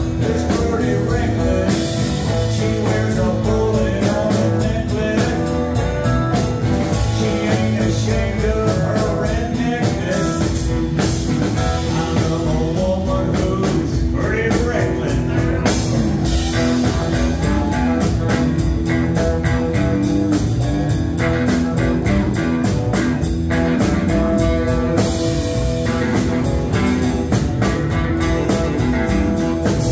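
Live blues-rock band playing loudly: electric guitars over a steady drum beat, with a sung vocal at times.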